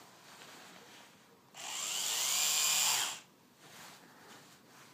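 Small electric epilator switched on: its motor whirs up in pitch, runs steadily for about a second and a half, then is switched off.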